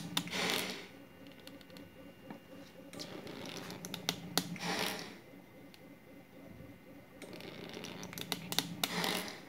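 Newport HT70 transport ventilator's compressor delivering breaths into a test lung: a rush of air about every four seconds, three breaths in all, with a few faint clicks between.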